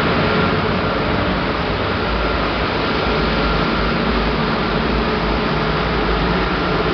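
Magnate industrial gas burner on a pomace dryer running with a steady, loud roar of blower and flame, a faint high whine held over it. A deeper rumble comes up about two seconds in.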